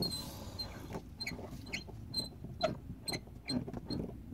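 Outdoor hose spigot handle being turned open, squeaking in a string of short chirps about twice a second as water is let into the drip-irrigation line.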